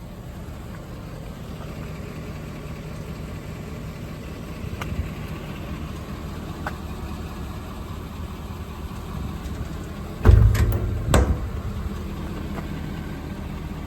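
The 2016 Ford F550's 6.7-litre Power Stroke V8 diesel idling steadily, with two loud thumps about ten and eleven seconds in.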